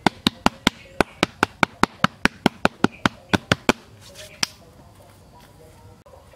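Bare palms slapping and patting down the soil floor of a freshly dug pit: a quick, even run of sharp slaps about five a second, stopping after nearly four seconds, with one last slap shortly after.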